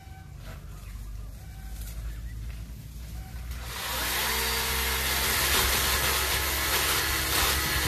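Worx WG368E 40V cordless electric chainsaw starting up about four seconds in and running steadily at full speed, cutting through tree branches.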